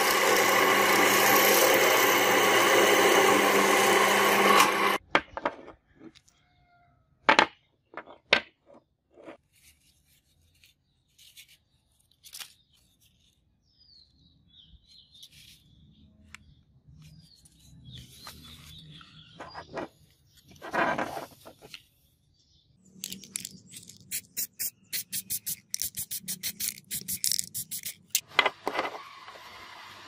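Drilling machine boring into a steel block clamped in a machine vise: a loud, steady cutting noise that stops abruptly about five seconds in. Scattered clicks and handling knocks follow, then a fast run of short rubbing strokes for about five seconds near the end.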